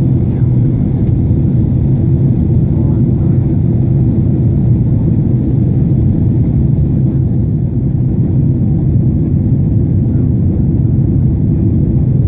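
Steady low rumble of an airliner's engines and airflow, unchanging throughout.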